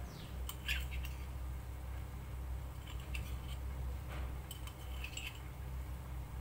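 A few light clicks and scrapes of a metal spoon and wooden spatula against a metal kadhai as garlic paste is added to frying onions, over a steady low hum.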